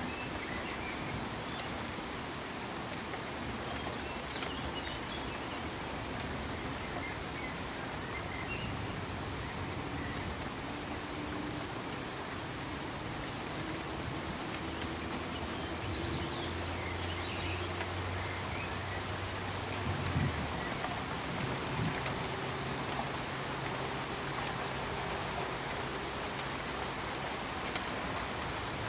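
Rain sound effect: steady rain noise, with a faint low hum in the second half and a couple of soft thumps.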